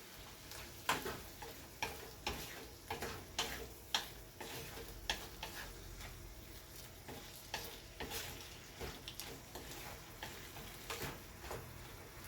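A spatula scraping and knocking against a pan while diced chicken is stir-fried, the strokes irregular at about one or two a second, over a faint steady sizzle.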